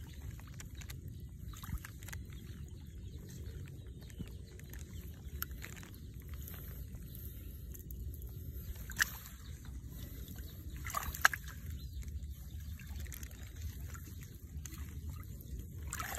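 Faint trickling and sloshing of shallow water among grass over a low steady rumble, with two sharp clicks, one about nine seconds in and a louder one about two seconds later. Grass rustles near the end as a hand grabs it.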